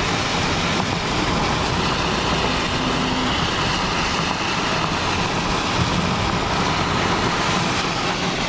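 Steady road and wind noise of a moving vehicle, with its engine running underneath.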